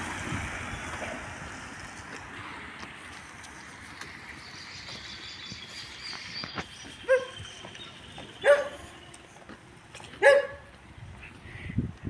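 A dog barks three times, each bark short and loud, about a second and a half apart in the second half. Before the barking there is a rushing noise that fades away over the first few seconds.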